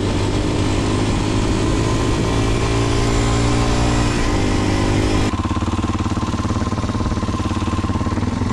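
Kawasaki KLX230SM's single-cylinder four-stroke engine, fitted with a Delta Barrel 4-S aftermarket exhaust, running at a steady cruise with heavy wind rush on the bike-mounted camera's mic. About five seconds in the wind noise drops and the engine's firing pulses come through more clearly as the bike slows down.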